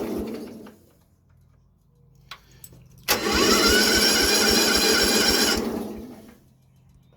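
Riding lawn mower's electric starter cranking the engine, which does not catch. A crank dies out in the first second, then after a faint click a second crank spins up and runs about two and a half seconds before stopping.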